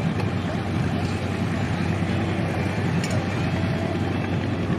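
Vintage John Deere two-cylinder tractor engine running steadily under load as it pulls a weight-transfer sled.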